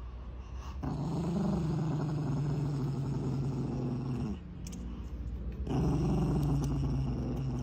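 Small dog growling with its teeth bared in two long, low growls. The first starts about a second in and lasts some three seconds; the second starts near six seconds.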